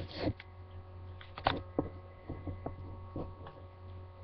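Steady low electrical hum on a laptop's built-in microphone, with a few faint taps and paper rustles as a glossy magazine is handled up against the webcam.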